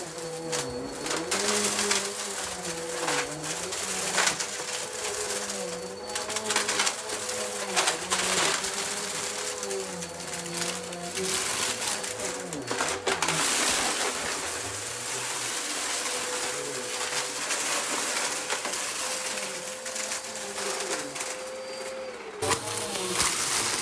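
Vacuum cleaner running on carpet with a steady motor whine and wavering lower tones beneath it, crackling and rattling as it sucks up a crunchy mix of cereal, confetti and small debris.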